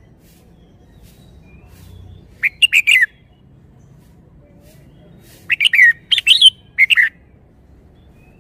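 Red-whiskered bulbul singing: a short phrase of quick, rising and falling notes about two and a half seconds in, then a longer phrase about five and a half seconds in.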